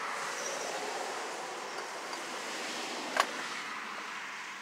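Steady outdoor hiss, with a single sharp click about three seconds in from the cylinder head and gasket being handled on a small Briggs & Stratton flathead engine.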